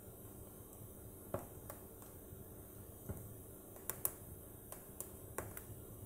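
Wood logs burning in a fireplace, crackling: about nine sharp pops at irregular intervals, the loudest a little past the middle, over a faint steady low hiss.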